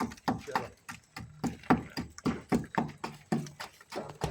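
Steady, rapid hammer blows, about four a second, each a sharp knock with a short ring.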